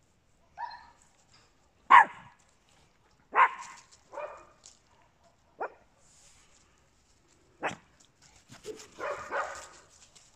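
Small dog barking: single sharp barks a second or two apart, the loudest about two seconds in, then a quick run of several barks near the end.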